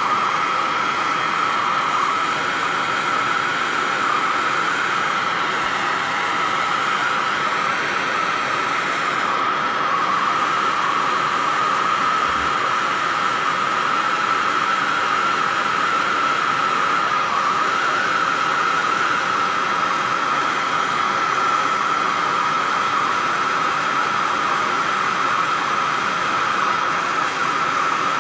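Glassworking torch flame burning with a steady, unchanging hiss, with a steady tone running through it, while a tungsten lead wire is sealed into glass.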